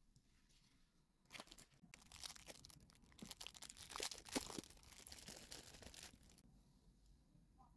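Plastic packaging being torn open and crinkled by hand: a dense crackling rustle that starts about a second in and stops about five seconds later, loudest midway.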